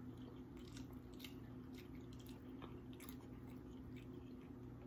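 Faint mouth sounds of a person chewing a mouthful of food: scattered soft clicks over a low steady hum.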